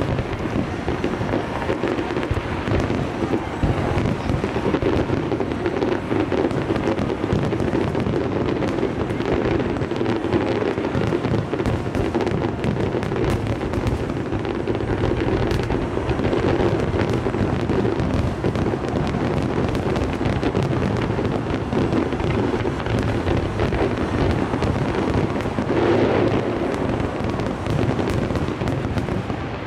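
Fireworks display: many shells bursting in quick succession, the reports running together into a continuous rumble with crackling over it.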